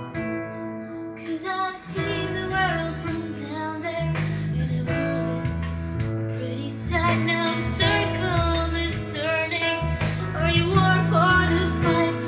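A recorded song with a singing voice and a prominent bass line, playing through Sansui SP-V100 three-way floor loudspeakers driven by a Technics SU-V6X amplifier. The voice comes in about a second and a half in.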